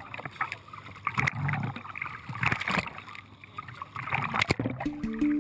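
Sea water splashing and dripping in irregular bursts as a scuba diver climbs out of the sea up the side of a boat. Music comes in near the end.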